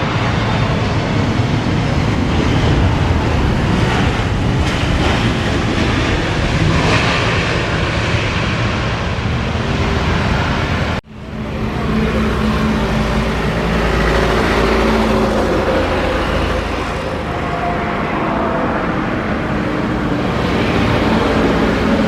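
Steady outdoor engine and traffic rumble. About halfway through it cuts out abruptly and comes back within a second. Afterwards a few steady engine tones sit over the rumble.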